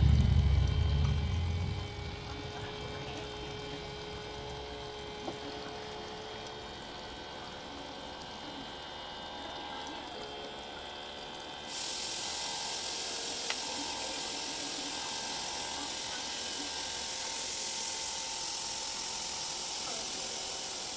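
A small motor running steadily with a faint whine, after a louder low rumble that dies away in the first two seconds. About halfway through a loud, even hiss starts abruptly and runs until near the end.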